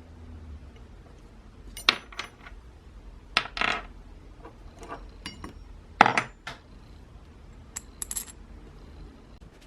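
Small metal parts clinking and clattering against each other and the work surface: a handful of separate sharp metallic strikes with short rattles, the loudest about six seconds in.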